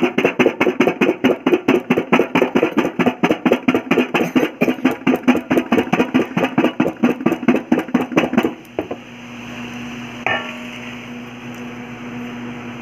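Jamun (black plums) shaken hard in a steel bowl covered by a steel plate, the fruit rattling and knocking against the metal in a fast steady rhythm of about five knocks a second. The shaking cracks the fruits open to mix them with salt, chilli and sugar. It stops about eight and a half seconds in, and a single metal clink follows a little later.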